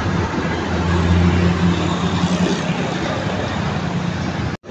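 Heavy diesel truck driving past close by with a low, steady engine drone, loudest a second or two in, over general road traffic noise.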